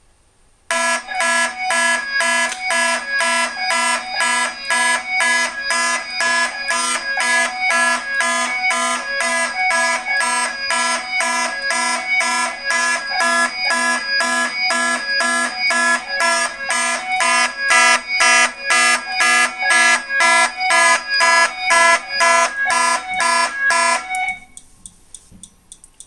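Fire alarm horns on a Fire-Lite MS-9600UDLS addressable system sounding in alarm, pulsing evenly about twice a second. The alarm was tripped by a photoelectric smoke detector tested with canned aerosol smoke. They start just under a second in and cut off suddenly about 24 seconds in.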